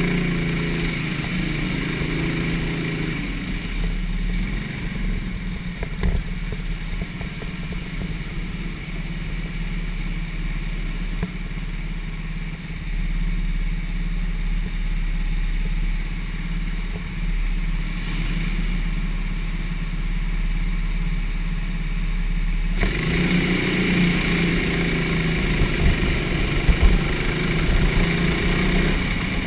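A go-kart engine running beneath the onboard camera, revving up as the kart pulls away and carrying on steadily as it laps the track. About 23 seconds in the engine sound suddenly grows louder and fuller.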